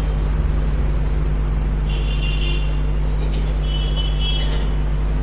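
A steady low hum with an even background noise, and faint high tones about two seconds in and again near four seconds.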